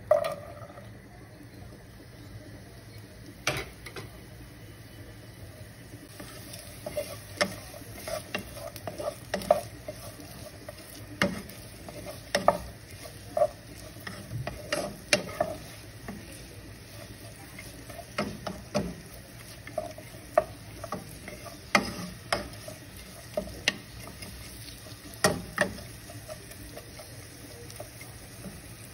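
Sliced onions dropped into a pot of hot ghee and oil, then stirred with a wooden spoon: irregular knocks and scrapes of the spoon on the pot over a faint sizzle.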